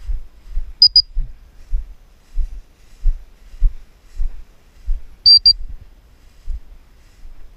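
Two short high double beeps from a bird dog's electronic beeper or training collar, one about a second in and one about five seconds later. Under them are steady low thumps about every half second from the dog's gait and breathing as it runs through tall grass with the camera on it.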